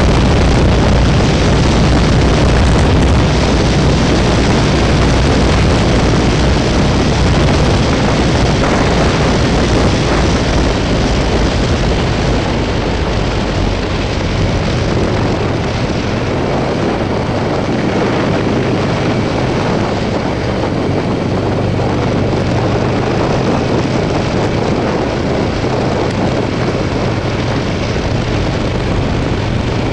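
Buell XB12Scg motorcycle's air-cooled V-twin engine running under loud wind rush on a helmet-mounted microphone while riding at road speed, a steady roar that eases a little about a third of the way through.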